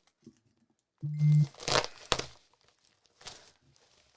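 Plastic packaging crinkling and tearing in a few short bursts as a bag of comics is opened, after a brief low hum about a second in.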